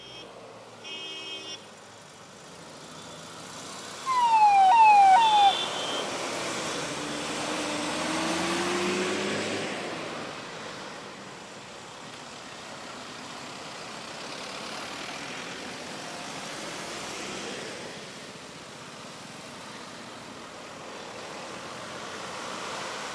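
Road traffic: a short horn beep about a second in, then three quick loud falling siren-like whoops, over steady road noise with a vehicle's engine rising in pitch.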